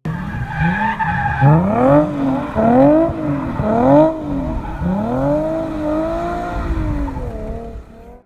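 Car engine revving up and down over and over, its pitch rising and falling in quick swells, dying away near the end.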